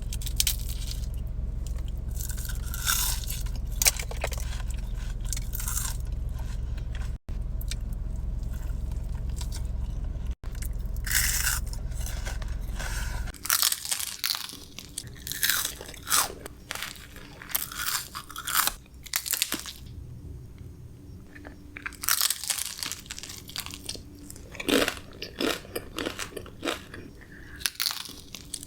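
Close-up crunching and chewing of crisp fast food, in repeated bites. A steady low hum lies under the first half and cuts off suddenly about halfway through.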